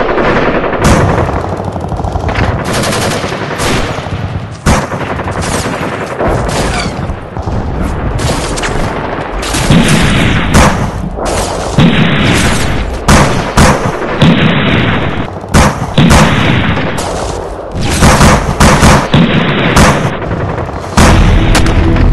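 Gunfire: volleys of rifle and machine-gun shots in quick succession, coming thicker and louder in the second half.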